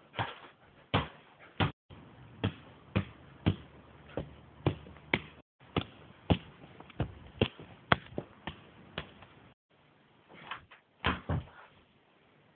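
A football being juggled: regular thuds of a foot striking the ball, about two a second, stopping briefly a few times, with a quick cluster of touches near the end.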